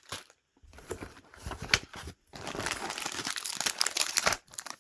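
Snack packaging crinkling as it is handled, in broken bursts and then a longer, denser stretch of crinkling from about halfway through.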